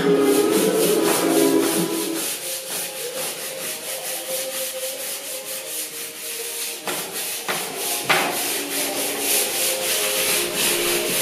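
Wooden board being sanded by hand with sandpaper, rubbing in rhythmic back-and-forth strokes. Background music fades out over the first couple of seconds and returns faintly near the end.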